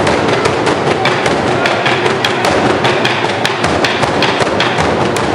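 Traditional Burundian drum ensemble beating large wooden barrel drums (ingoma) with sticks, a dense, continuous pounding rhythm of many strokes a second.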